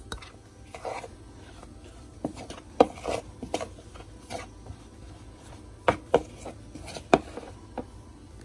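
A utensil stirring rice flour, tapioca flour and hot water together in a bowl: irregular scraping strokes with knocks against the bowl, a few of them sharper and louder.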